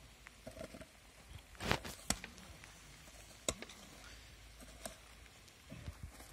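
Shovels scraping and knocking in wet soil and gravel as the edges of a plastic pitch cover are weighed down: a few scattered strikes, the loudest about one and a half seconds in.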